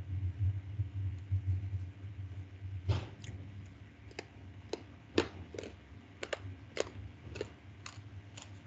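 Marker pen drawing and writing on paper on a desk. A low rubbing for about the first three seconds gives way to a dozen or so light taps and clicks as the strokes are made.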